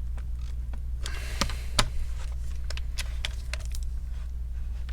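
Scattered sharp clicks and taps of a hand tool working a laptop hinge screw, over a steady low electrical hum.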